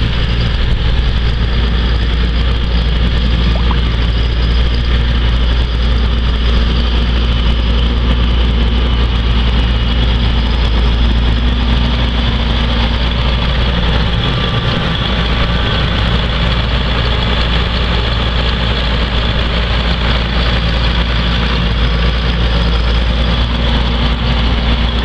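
2011 Challenger MT645C tractor's six-cylinder diesel engine running steadily as the tractor drives past.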